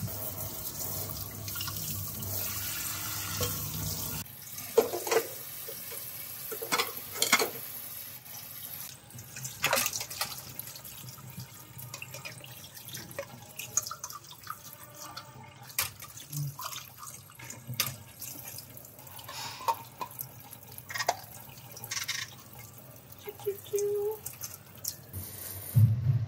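Kitchen tap running into a sink for the first few seconds, then water splashing and dishes knocking and clinking against each other and the sink as they are washed by hand.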